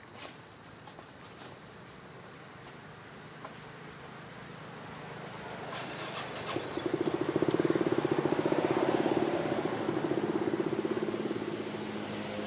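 Steady high-pitched insect drone. About halfway through, a pulsing engine sound swells in, is loudest for a few seconds, then eases off.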